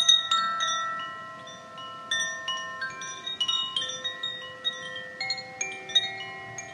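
Koshi wind chime, a bamboo tube with tuned metal rods inside struck by a central clapper, shaken by hand: a loud strike at the start, then a steady run of strikes whose clear notes keep ringing and overlap into a shimmering chord.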